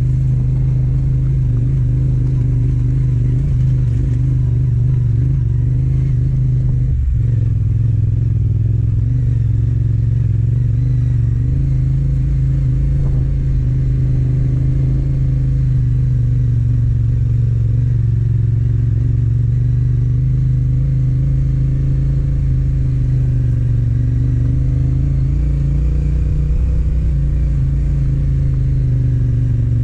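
Yamaha Ténéré 700's 689 cc parallel-twin engine running under way at fairly steady revs that rise and fall a little, with one knock about seven seconds in.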